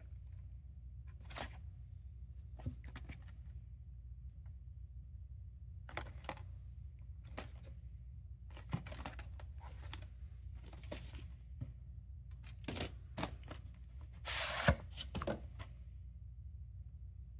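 Cardboard VHS sleeve and plastic videocassette handled: scattered rustles and light taps, then a longer scraping slide about fourteen and a half seconds in as the cassette is pulled out of its sleeve. A steady low hum lies under it all.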